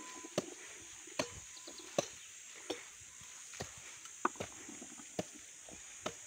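Footsteps on dry tilled soil, sharp slaps roughly once a second, over a steady high buzz of insects.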